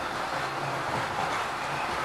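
Model train running on the layout track: a steady whirr of its small electric motor and wheels rolling on the rails.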